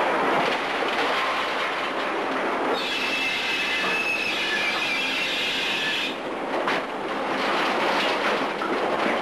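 Menck M152 cable excavator working a wrecking ball: steady mechanical noise from its machinery and cables, with a high metallic squeal for about three seconds in the middle.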